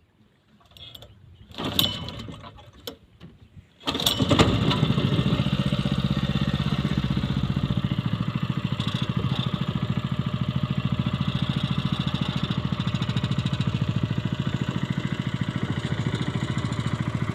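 A small engine starts suddenly about four seconds in, after a few clicks and knocks, then keeps running at a steady fast idle.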